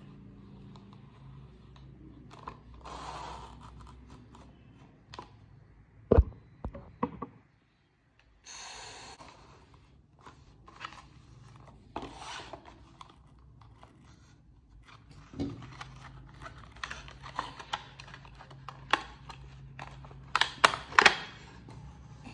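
Utility knife scraping and slicing through a Hot Wheels blister card, cardboard and plastic blister crinkling as it is cut and pulled apart. Scattered sharp clicks and knocks run through it, the loudest about six seconds in and again near the end as the die-cast car is worked free.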